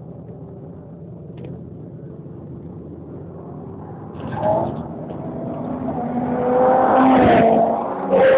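Car engine at high revs with a low rumble underneath, growing steadily louder from about halfway through and peaking near the end with a short loud surge.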